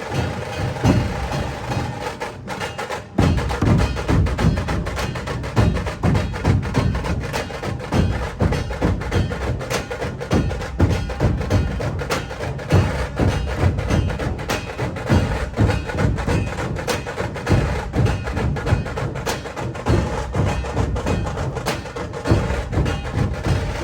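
Background music with a fast, steady percussive beat of sharp wood-block-like strokes, dropping out briefly near the start.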